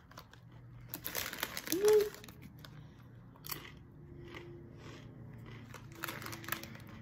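Salt-and-onion potato chips being bitten and chewed with crisp crunching, and the chip bag crinkling about a second in.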